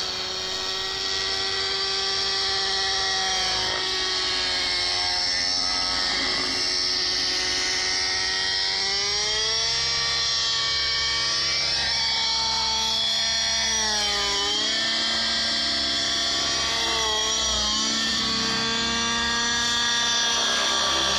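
Petrol-engined T-Rex 700 radio-controlled helicopter running, its small engine and rotor making a steady high-pitched drone. The pitch climbs about nine seconds in, drops sharply and recovers around fourteen seconds, then wavers briefly as the engine speed changes.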